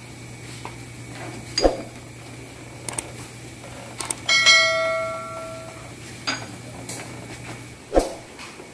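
Metal parts and tools clinking and knocking while an electric scooter's handlebar is taken apart: a few sharp knocks. About four seconds in, a struck metal piece rings like a bell for over a second. A low steady hum underneath stops near the end.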